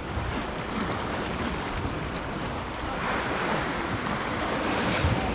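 Sea waves washing and splashing against a rocky shoreline, swelling a little louder about three seconds in.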